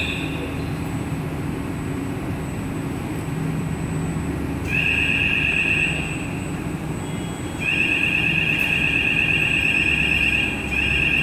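Shrill two-tone electronic warning alarm that sounds in long stretches of a second to three seconds, switching off abruptly between them. It is the movement warning as the train car is moved through the wheel profiling machine. A steady low machinery hum runs underneath.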